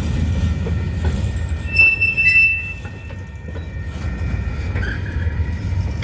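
Freight train of coil cars moving slowly over the crossing with a steady low rumble. A high-pitched steel wheel squeal rings out about two seconds in for about a second, and a fainter squeal follows near the end.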